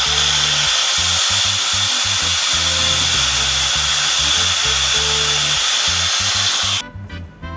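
Angle grinder running: a loud, steady hiss with a high whine that cuts off suddenly near the end. Background music with a bass line plays underneath.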